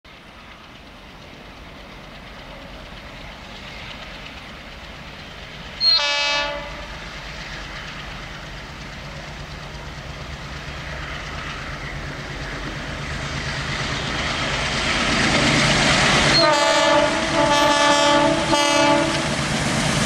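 MLW diesel-electric locomotive approaching with its engine drone growing steadily louder. It gives one short horn blast about six seconds in, then a series of chord horn blasts near the end as it nears.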